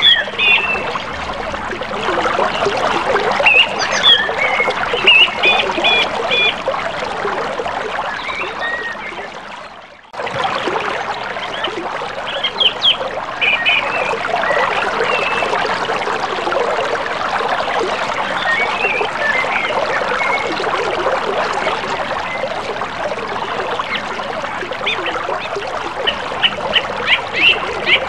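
Steady rush of a river flowing over shallows, with short bird calls scattered through it. The sound fades away about nine seconds in and cuts straight back in a second later.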